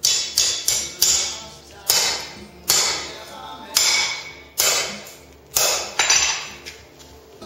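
Blacksmith's hammer striking a hot 3/8-inch round steel bar on the anvil, about ten blows with a short ring after each: a few quick ones at the start, then roughly one a second.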